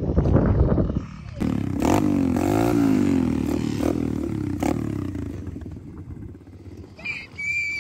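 Small pit-bike dirt bike engine comes in sharply about a second and a half in, is revved up and back down, then runs on and fades toward idle. There are a couple of sharp clicks while it runs.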